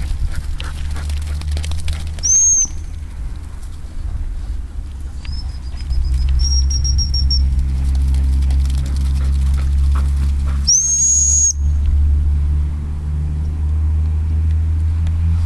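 A gundog training whistle blown three times, a short blast, a long blast of about two seconds and a blast of about a second, calling the dog in with the retrieve. The whistles sound over a steady low rumble, with rustling and crackling in the first few seconds.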